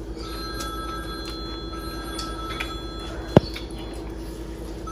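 Faint clinks and taps of people eating by hand from metal plates, with one sharp clink about three and a half seconds in. Under them runs a steady background hum with high ringing tones that come and go.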